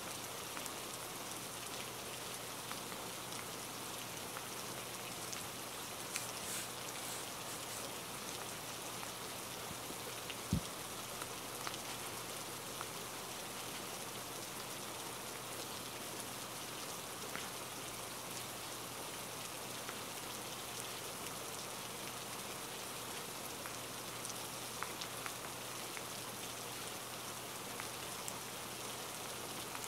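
Steady rain: an even hiss with faint scattered drop ticks, and one short low thump about ten seconds in.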